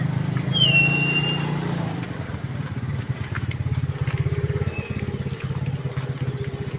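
Small motorcycle engine running at a low, even pace, with a brief high squeal about a second in.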